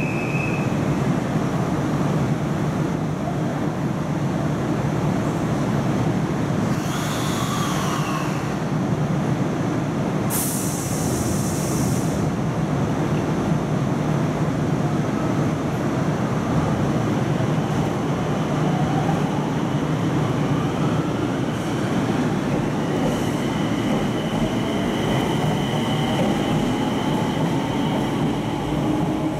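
A train running on the rails with steady rolling noise. There is a brief high hiss about ten seconds in, and a rising whine over the last third as it picks up speed.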